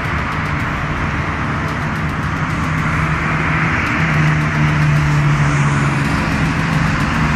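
Car driving along: steady road noise with a low engine hum, the engine note getting stronger and stepping up slightly about four seconds in.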